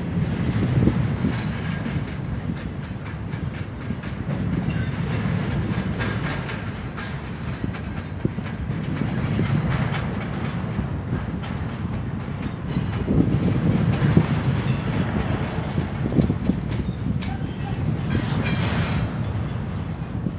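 Slow Union Pacific freight train of autorack and intermodal cars rolling past: a steady low rumble that swells and fades, with the clickety-clack of steel wheels over rail joints.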